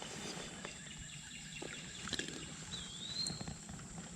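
Quiet creekside outdoor background with a single bird whistle about three seconds in, a short slurred note that dips and then rises. A faint steady high tone runs underneath.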